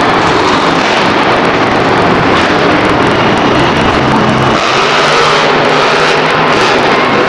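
Grave Digger monster truck's supercharged methanol V8 running hard, a loud, steady engine noise that fills the arena.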